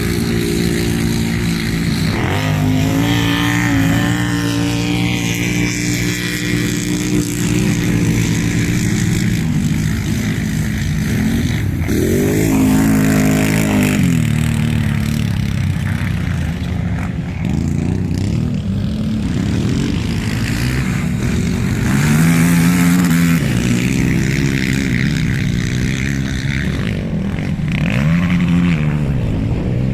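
Racing quad bike (ATV) engines revving up and dropping off again and again, the pitch climbing and falling as they accelerate and ease off.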